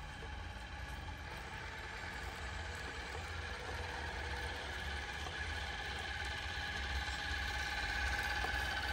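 Electric motor and gearbox whine of a Traxxas TRX-4 scale RC crawler driving through shallow water. The whine is steady and grows louder as the truck comes up close.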